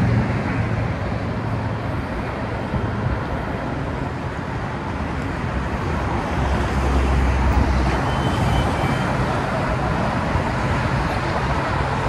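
Passenger train moving alongside the platform: a steady rush with a deeper rumble that swells about six to eight seconds in, mixed with traffic noise.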